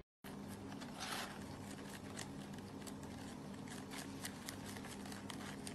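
A rabbit chewing lettuce leaves: a quick, irregular run of small crisp crunches, with a louder rustle of leaves about a second in. A faint steady hum lies underneath.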